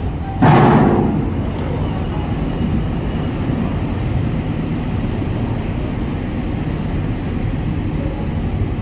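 Heavy multi-axle crane's diesel engine running with a steady low rumble as the machine creeps into the ferry's steel vehicle deck. There is a sudden loud burst of noise about half a second in.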